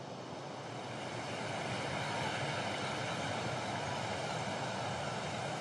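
Steady rushing ambient noise that grows a little louder over the first couple of seconds, with a faint bird call near the end.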